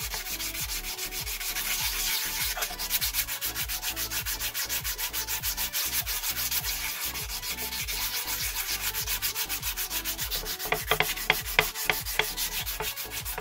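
Hand-sanding a steel axe head with P320-grit sandpaper: a dry, scratchy rubbing in quick, even back-and-forth strokes, about four a second. A few sharper, louder scrapes come near the end.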